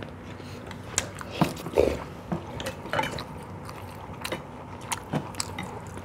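Eating sounds at the table: chewing, with scattered short clicks and taps of spoons and chopsticks against stainless-steel bowls.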